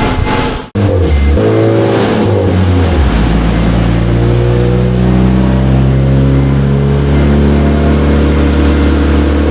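Turbocharged Honda R18 1.8-litre four-cylinder running hard during a dyno tuning pull, its note climbing slowly and steadily as the revs rise under load. The engine is still being tuned and is running a little lean.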